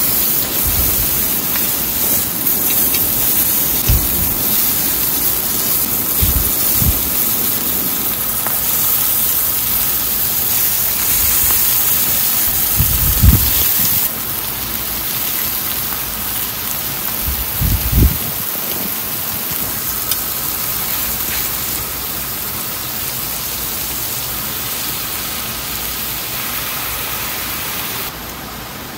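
Food sizzling in a hot pan: a steady hiss with a few dull knocks from handling the pan, dropping away suddenly near the end.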